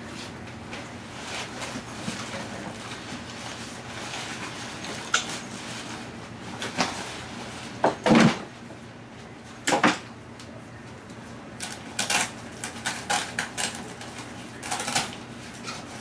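A padded nylon camera backpack being handled: fabric rustling with a string of short knocks and clicks as the bag is turned over and its front pocket is worked. The loudest thump comes about eight seconds in, with a quick run of clicks near the end.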